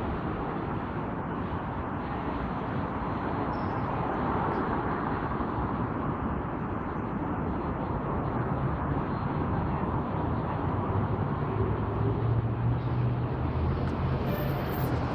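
Steady rumble of city traffic and station background noise on an open light-rail platform. A low hum grows louder through the second half.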